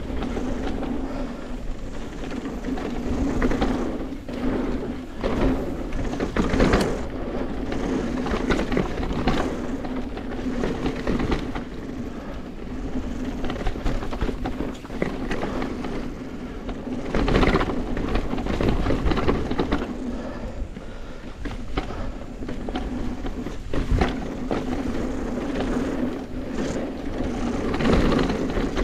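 Bicycle being ridden: a steady rolling rumble and hum, with a few louder knocks and jolts spread through it.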